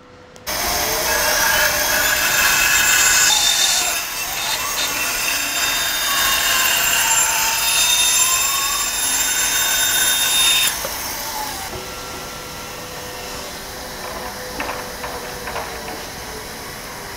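Band saw cutting off the unwanted part of a wooden board for about ten seconds, its pitch sagging and recovering as the blade works through the wood. The cut then ends and a quieter steady machine hum carries on, with a few light knocks near the end.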